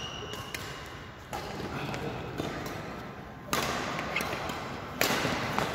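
Badminton rally: a few sharp racket strikes on the shuttlecock and a brief shoe squeak on the court floor, echoing in a large sports hall.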